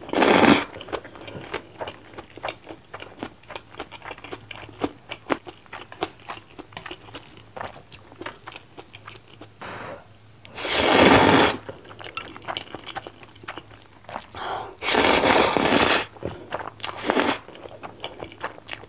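Close-miked mukbang eating of saucy instant ramen noodles: three long, loud slurps and a short one, with wet chewing clicks in between.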